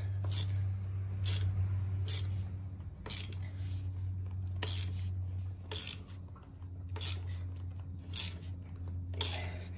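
Ratchet clicking in short bursts about once a second as it turns the press screw of a chain breaker tool, forcing a pin out of a motorcycle drive chain, over a steady low hum.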